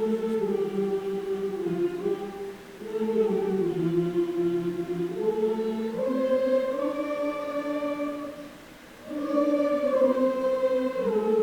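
High school choir singing in several parts: long held chords that move in steps, with a short break about two and a half seconds in and a longer one near the three-quarter mark.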